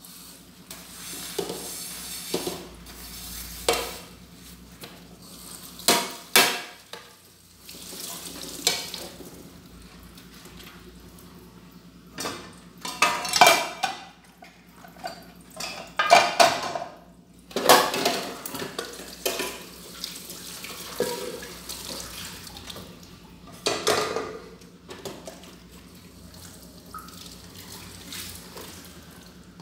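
Dishes being washed by hand at a kitchen sink: tap water running on and off, with irregular clinks and clatters of a pan, dishes and cutlery being scrubbed and set in a drying rack.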